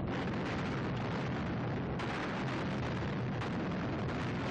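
Dense, continuous din of explosions and gunfire from a newsreel's battle sound-effects track for a night bombing raid, steady and loud, growing harsher about two seconds in.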